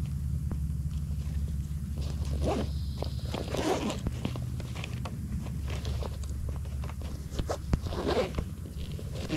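Footsteps crunching on forest ground as someone walks along a trail, in uneven scrapes that bunch up about two to four seconds in and again near the end, over a steady low rumble.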